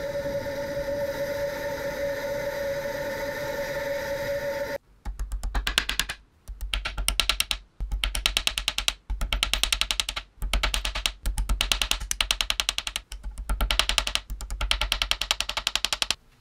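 A steady hiss with a constant hum for about the first five seconds. Then a hammer taps small steel clips on a bench vise's anvil, in quick runs of sharp metallic strikes about ten a second, broken by short pauses.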